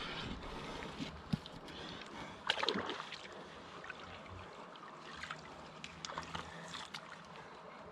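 Faint steady rush of river water with scattered handling clicks and rustles, and a louder rustling burst about two and a half seconds in.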